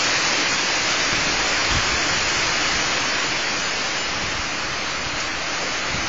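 Hurricane wind rushing through large leafy trees, a loud steady hiss of thrashing leaves and branches, with a brief low buffet of wind on the microphone now and then.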